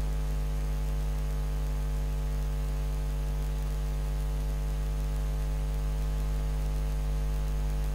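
Steady electrical mains hum: an unchanging low drone with a stack of fainter steady tones above it, over a light hiss.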